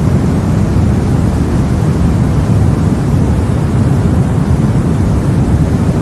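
Steady white noise for sleep, a deep, even rumbling hiss with most of its weight low down and no change or break.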